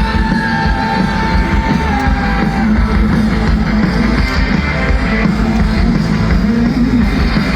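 Rock band playing live, with electric guitar, loud and steady; a held note ends about two seconds in.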